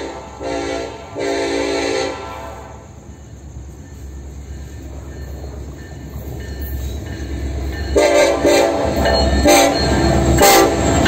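Horn of an approaching KCSM EMD SD70ACe diesel locomotive: three blasts in the first two seconds, the last one longest. The train's rumble then grows steadily louder, and from about eight seconds in the horn sounds again, louder, as the locomotive draws close.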